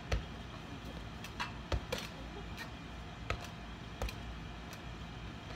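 Tetherball being slapped by hand as it swings around the pole: several sharp slaps a second or so apart, with lighter clicks between, over a steady background hiss.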